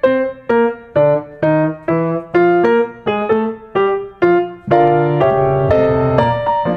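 Background piano music: single struck notes about two a second, then fuller, longer-held chords near the end.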